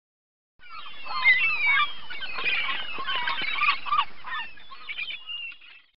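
A flock of geese honking, many calls overlapping. It starts suddenly just after the beginning and fades out near the end.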